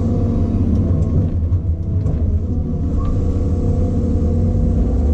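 A log loader's diesel engine runs steadily under load, heard from inside the cab, while its hydraulic boom and grapple swing.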